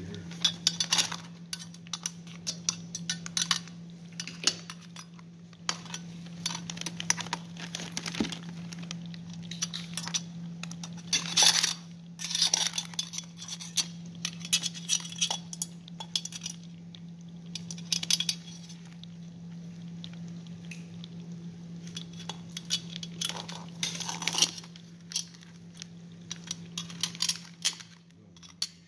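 Metal kitchen tongs clicking and clinking against the hard shells of live blue crabs, in irregular sharp clicks with louder clusters about 11 and 24 seconds in. A steady low hum runs underneath.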